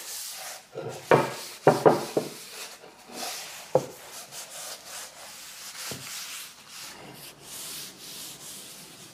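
A folded paper towel rubbing canola oil over a red ironwood cutting board in steady back-and-forth strokes, with a few short squeaks about a second in and a light knock as the board is tilted.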